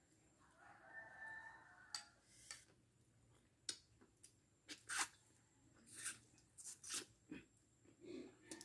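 Balut quail eggshells being cracked and peeled by hand: a scattered run of light, sharp clicks and crackles. A faint pitched sound is heard about a second in.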